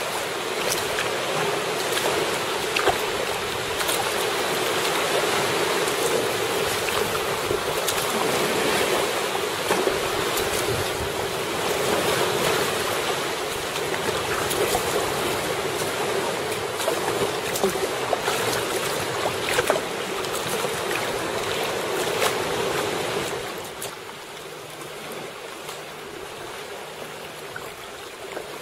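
Sea water sloshing and splashing against a sea kayak's hull, with scattered short splashes and wind on the microphone. The sound turns quieter about 23 seconds in.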